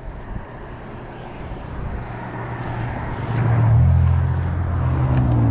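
A road vehicle's engine drawing closer. Its low hum and road noise grow louder, peak about three and a half seconds in and stay loud.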